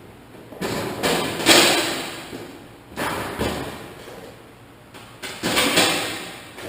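Sheet-metal cab panel being handled and fitted into place: a series of knocking, sliding bumps, loudest about a second and a half in.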